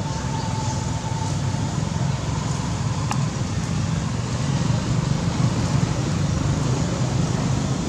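Steady low outdoor rumble, with a faint thin whine over the first two seconds and a single short click about three seconds in.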